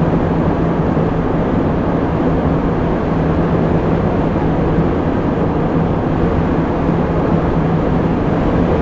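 Steady road and engine noise inside a moving vehicle's cabin, with a constant low drone.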